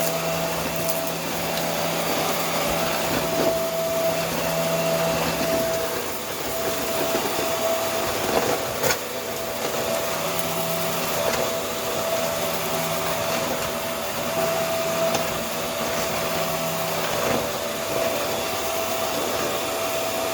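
Vacuum cleaner running steadily, an even motor whine over the rush of suction as the head is worked over a surface, with a brief knock about nine seconds in.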